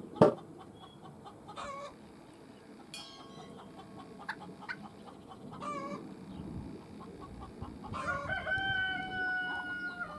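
Farmyard poultry calling: several short calls, then one long crowing call about eight seconds in that falls slightly at its end. A sharp knock just after the start is the loudest sound.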